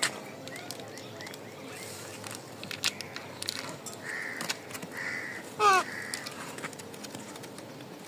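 Rose-ringed parakeets giving short harsh squawks in the second half, with one louder call falling in pitch about five and a half seconds in, plus a few sharp clicks.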